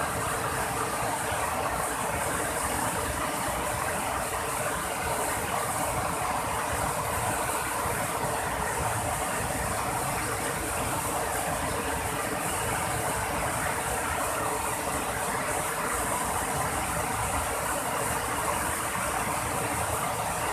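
Steady, noisy rush of river water flowing fast, with no breaks or distinct strokes.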